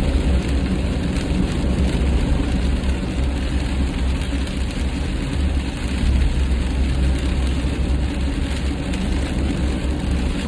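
Steady road and wind noise inside a car at highway speed, with a deep low rumble, and rain spattering on the windshield.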